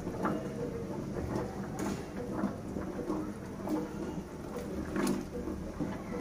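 Wooden spoon stirring a thin potato curry in a clay pot: the watery gravy slops, and the spoon knocks and scrapes against the clay a few times.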